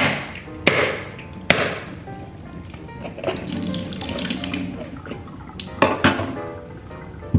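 A young coconut being hacked open with a blade: three sharp chops in the first second and a half, a stretch of coconut water running out, then two more quick chops near the end.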